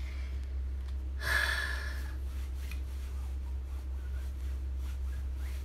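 Clothes being ironed: faint rustling of a cotton shirt under a hand iron over a steady low hum, with one short breathy hiss about a second in.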